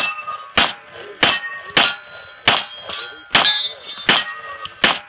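A rapid string of pistol shots, about eight, roughly one every 0.7 seconds. Each shot is followed by a ringing metallic tone.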